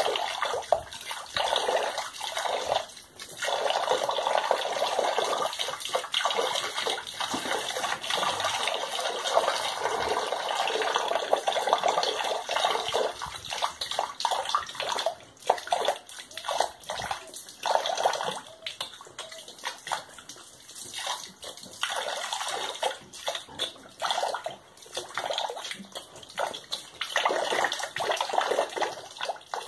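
Running water splashing and spattering unevenly as piglets drink from the stream.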